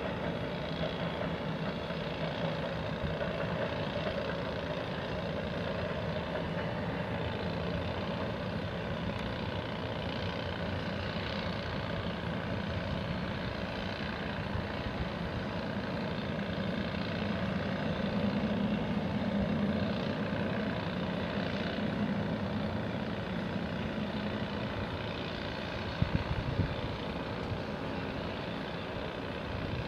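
Steady engine rumble that swells a little around twenty seconds in, with a few sharp knocks about four seconds before the end.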